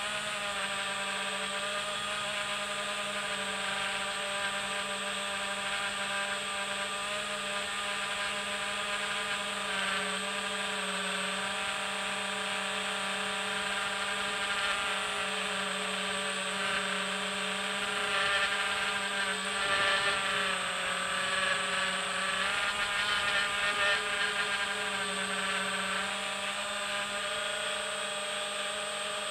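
Steady electric motor and propeller whine of a radio-controlled FPV aircraft, heard from its onboard camera. The pitch shifts a little with the throttle, and the whine grows somewhat louder about two-thirds of the way through.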